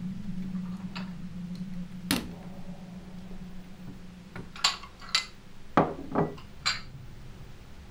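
Plates and bowls clinking and knocking as they are picked up and set down on a table. The clinks are sharp and separate, with several close together in the second half, over a low steady hum.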